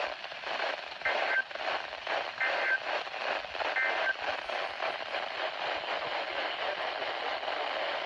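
Weather radio speaker hissing with static from a weak NOAA Weather Radio signal, with three short two-tone data bursts about a second and a half apart in the first half: the EAS SAME header, which the radio does not recognize.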